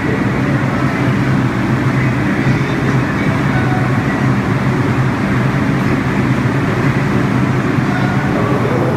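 Stopped New York City subway train at a station platform: a steady, loud hum and rumble from the car's running equipment, unchanging throughout.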